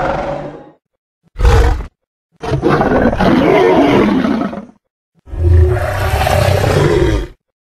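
Indominus rex creature sound effects: a series of separate roars with silent gaps between them, starting with one fading out, then a short one about a second and a half in, then two longer roars of about two seconds each.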